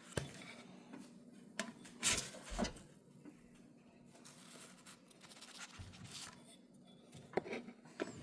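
A few light knocks and clicks of handling, with a faint steady hum beneath.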